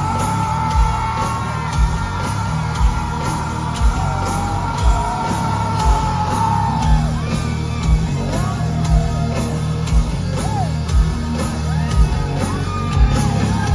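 Heavy metal band playing live in a large hall: a heavy drum beat about once a second under held electric guitar notes, with crowd yelling and whooping over it.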